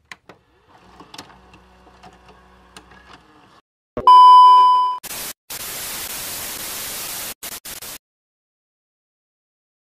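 Television test-pattern sound effect: a loud steady beep for about a second, then about three seconds of TV static hiss broken by a few short gaps, which cuts off suddenly.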